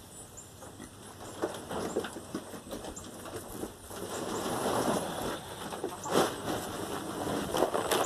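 Irregular soft rustling and patter of movement through dry grass and hay, with a few faint bird chirps.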